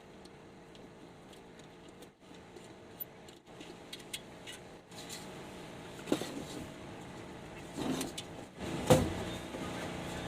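Workshop handling noise: scattered light clicks and knocks, busier in the second half, with one louder knock about nine seconds in.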